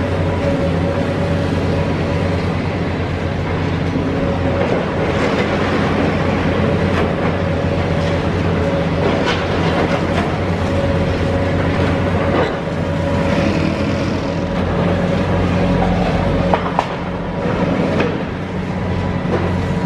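Hitachi Zaxis high-reach demolition excavator's diesel engine running steadily under load while its crusher jaws break up concrete, giving irregular sharp cracks and crunches as chunks break off and rubble falls.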